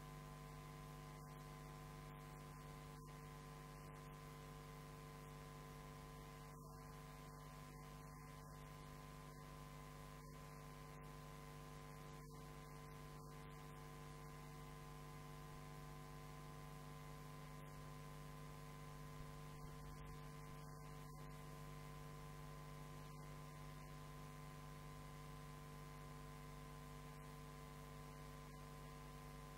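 Near silence with a steady electrical hum made of several constant tones.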